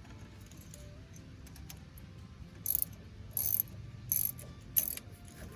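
Ratchet wrench clicking on its back-strokes while a grease fitting is tightened into a PTO overrun clutch: four short clicks about two-thirds of a second apart in the second half.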